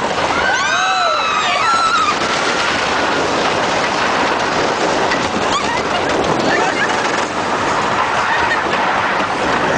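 Giant Dipper wooden roller coaster train running fast along its track, a steady rattling rush of wheels and wind. Riders scream during the first couple of seconds.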